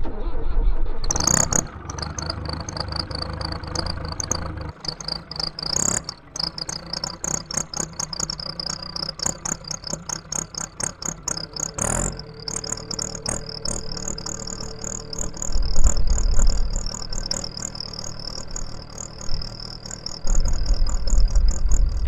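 1996 New Holland L85 tractor's diesel engine idling while it warms up, with a fast, even high-pitched clatter over its running. Gusts of wind buffet the microphone twice in the second half.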